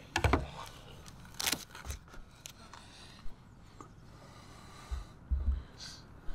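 A few separate knocks and scrapes of hand work, the sharpest about a second and a half in, with short low thumps near the start and again about five seconds in.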